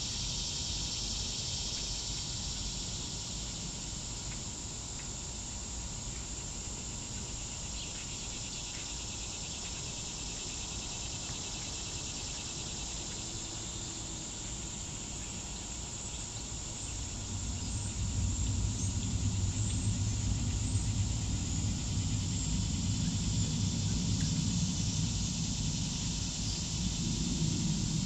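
A steady chorus of insects, with a low rumble that swells in about two-thirds of the way through and stays to the end, louder than the insects.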